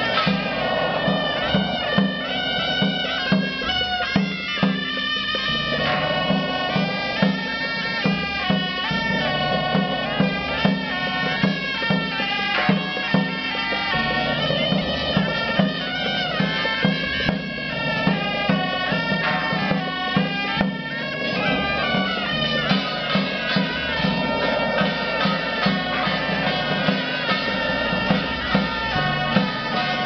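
A procession band of wind instruments playing a melody together over a regular percussion beat.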